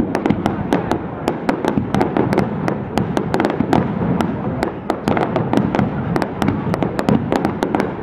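Aerial fireworks shells bursting in a rapid barrage: several sharp bangs a second over a steady din of overlapping explosions.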